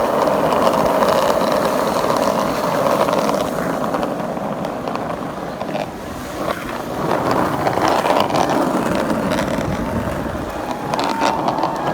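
Skateboard wheels rolling over pavement: a steady rolling noise that dips about halfway through, then builds again.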